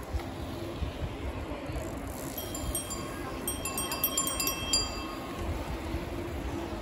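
Several bicycle bells ringing from passing riders, a cluster of quick high dings at different pitches in the middle, over wind rumble on the microphone.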